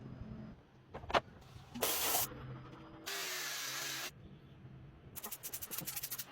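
Workshop sounds on a bench: a sharp click, then two bursts of pressurised spray hiss, the second about a second long and cut off sharply, then a run of rapid clicks near the end.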